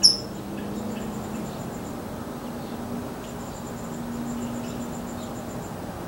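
A bird gives a single sharp, high chip call right at the start. Under it runs a faint, high, pulsing insect-like trill that comes and goes, over a steady low hum.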